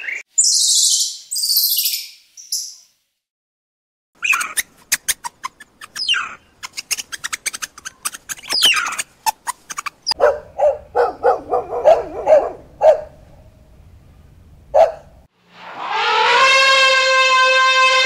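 A run of animal calls: high chirps in the first few seconds, then quick clicks and short chirps, and short repeated meerkat calls. From about fifteen seconds in, an elephant trumpets in one long, loud call lasting about three seconds.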